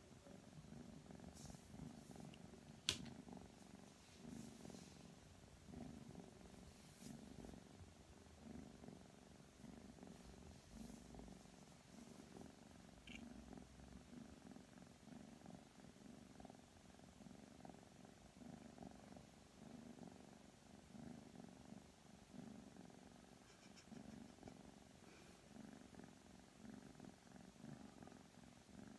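Ragdoll kitten purring faintly and steadily, swelling and fading about once a second with its breathing. About three seconds in comes one sharp click, the snip of a pet nail clipper cutting a claw.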